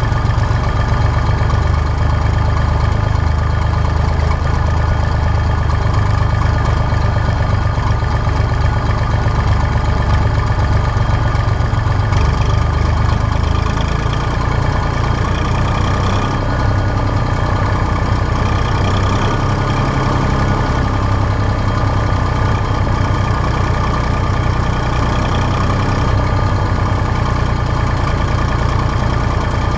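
Tractor engine running steadily at an even cruising speed, heard up close from the driver's seat just behind the bonnet.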